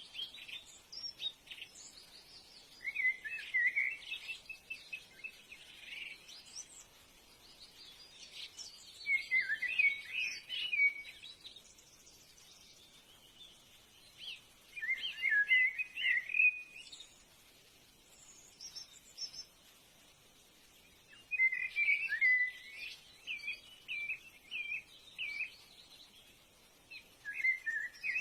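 A songbird singing: phrases of quick, warbling chirps a few seconds long, repeated about five times, with fainter chirps between them.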